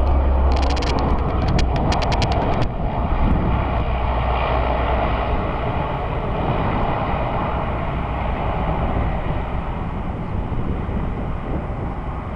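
Four turboprop engines of a Lockheed C-130 Hercules running during its landing, a heavy drone whose low hum dies away after a few seconds while the overall sound slowly fades.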